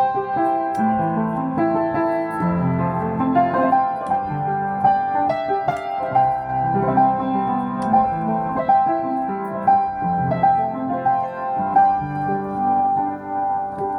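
Piano playing a slow, gentle piece: a high note struck again and again, about once a second, over changing lower notes and chords.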